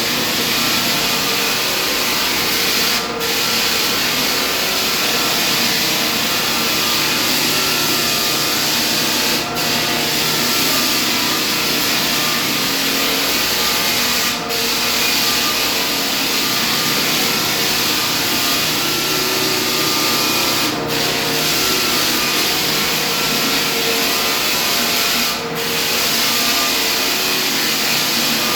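Hardwood floor sanding machine running steadily on a wood floor, a dense grinding hiss over a steady motor hum, dipping briefly five times, about every five seconds.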